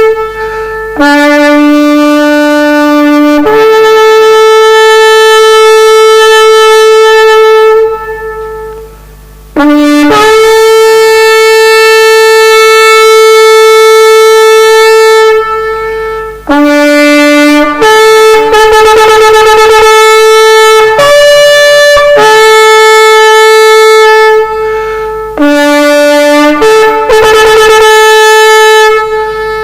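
Horn blasts: long held notes alternating between a low note and a higher one, with wavering, trill-like stretches around two-thirds of the way through and near the end, and a short pause about a third of the way in.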